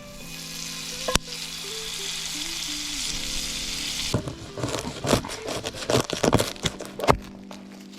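Food sizzling over a campfire: a steady sizzle for about four seconds, then a run of sharp crackles and pops. Background music plays underneath.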